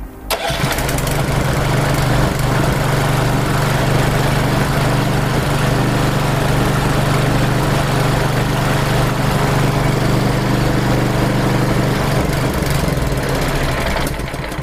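Small gasoline engine starting about half a second in and running steadily on 5 ml of gasoline injected into its fuel line, then dying near the end as that fuel runs out.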